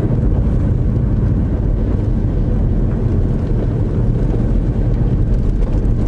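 Car driving on a wet road, heard from inside the cabin: a steady low hum of engine and tyres.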